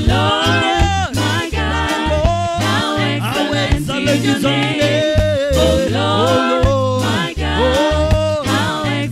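Live church band playing a reggae worship song: a pulsing bass line under keyboard, with a lead singer and backing vocalists singing.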